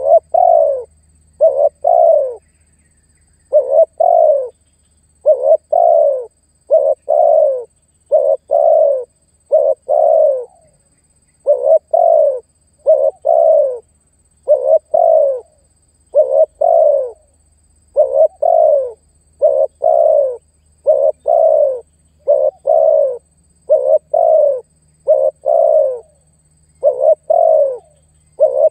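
Male spotted dove (tekukur) cooing over and over, the notes mostly in close pairs with short gaps between, each note dropping slightly in pitch. This is a male's calling and rival-challenging song, used as a lure call.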